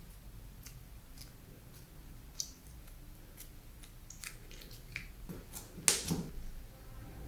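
Slime being squeezed and worked by hand, giving scattered small sticky clicks and pops, with one louder pop about six seconds in.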